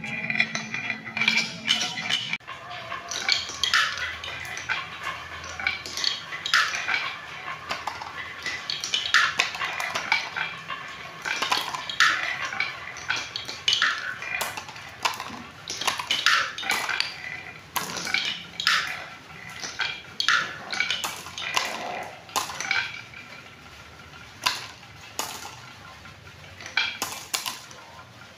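Glass marbles rolling and clattering down wooden marble-run tracks. A short rolling run opens it, then come many irregular clacks of marbles dropping and knocking against the wood, thinning out near the end.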